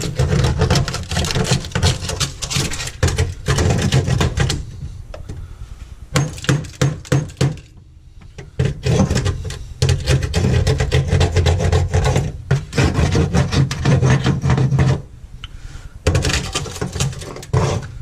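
Rapid, repeated strikes of a hand tool chipping dry-ice-frozen, tar-like sound deadening off a car's sheet-metal floor pan, knocking and clattering in several bursts with short pauses between them.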